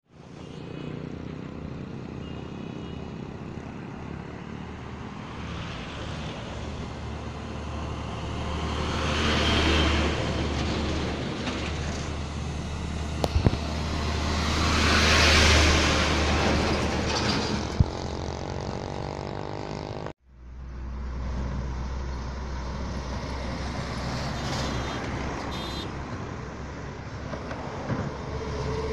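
Heavy diesel oil tanker trucks driving past on a highway, engines and tyre noise swelling as one passes close about ten seconds in and another about fifteen seconds in. A steady drone of traffic follows after a brief break.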